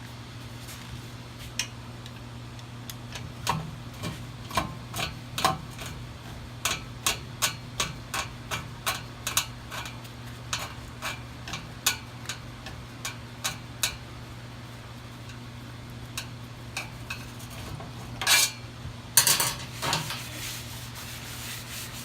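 Metal hand tools clicking and clinking on the motorcycle's oil filter cover bolts, a run of sharp clicks two or three a second while the Allen bolts are fitted. Near the end come a few brief rubbing scrapes. A steady low hum runs underneath.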